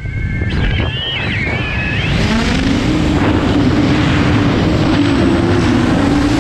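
Propellers and brushless motors of a 12S X-Class racing quadcopter (Cannonball 800 frame, X-Nova 350KV motors) in flight. Near the start the throttle comes back, high wavering motor whines sound for about a second, then from about two seconds in the props settle into a steady low buzz that rises slightly in pitch.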